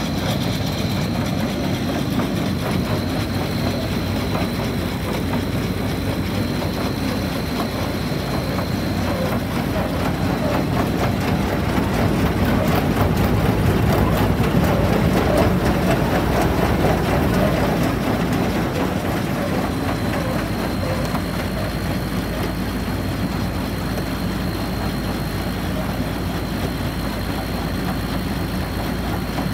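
A Case 1020 flex header's drive running steadily, with engine hum and a thin high whine that fades out about nine seconds in and comes back around twenty seconds. The sound grows louder from about twelve to eighteen seconds, when the driveshaft and gearbox are close by.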